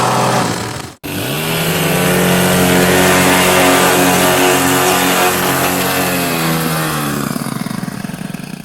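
Small lawn mower engine: one recording fades out, and after a brief gap about a second in another starts, quickly rises to a steady run, then slows with falling pitch and dies away near the end, as when the engine is shut off.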